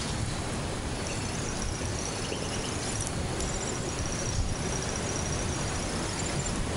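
Steady outdoor background noise, with faint high-pitched trills repeating on and off above it.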